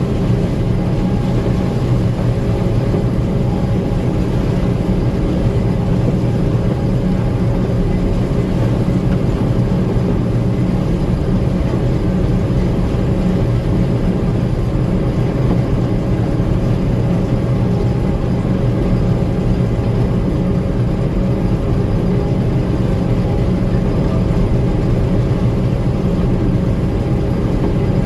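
Gleaner M2 combine running steadily, a constant engine drone with no change in speed.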